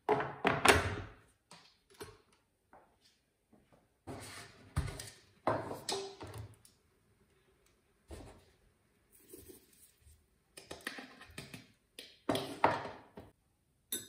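Household objects being handled: three spells of knocks, thuds and light scraping with quiet gaps between, the loudest thud coming under a second in.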